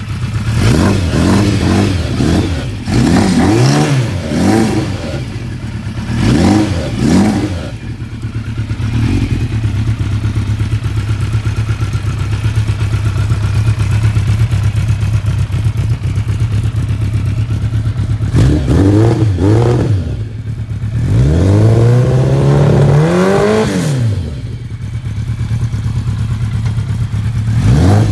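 1987 Yamaha FZR1000's inline-four engine idling and being revved. There is a run of quick throttle blips over the first several seconds, a steady idle through the middle, then two longer revs about two-thirds of the way through, and another blip right at the end.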